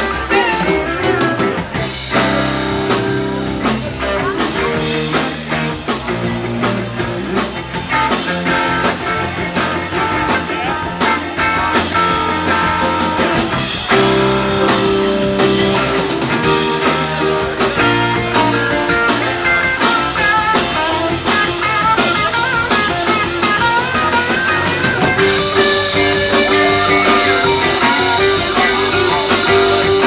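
Live rock band playing: electric guitar over a drum kit, with heavier cymbal wash in the last few seconds.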